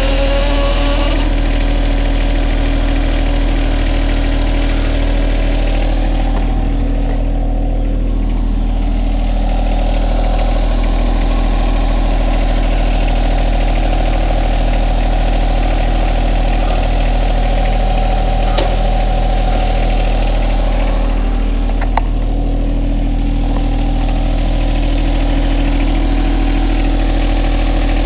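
John Deere 1025R compact tractor's three-cylinder diesel running steadily at a constant speed, with a couple of faint clicks in the last third.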